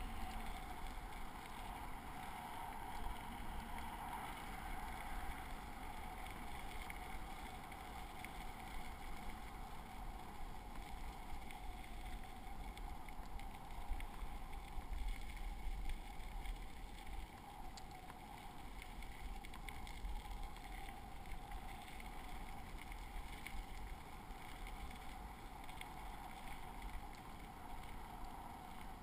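Steady rushing of tyres rolling on a gravel trail, mixed with wind buffeting the camera microphone while riding.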